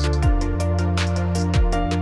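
Background music: held chords over a deep bass, with a light ticking beat about four times a second.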